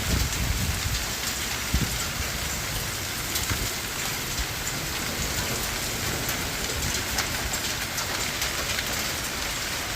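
Rain and hail falling steadily, an even hiss scattered with many sharp ticks of hailstones striking. A couple of low thumps come in the first two seconds.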